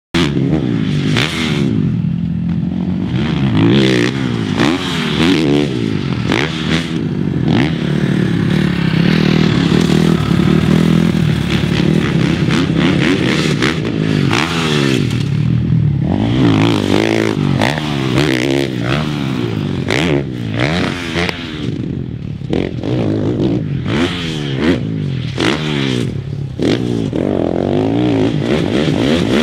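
Husqvarna FC450's single-cylinder four-stroke engine revving hard on a supercross track, its pitch rising and falling over and over as the throttle is opened and chopped through jumps and turns, with clatter between the revs.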